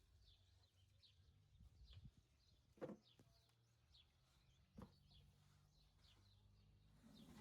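Near silence with faint, short bird chirps repeating every half second to a second over a low steady hum. Two soft knocks about three and five seconds in.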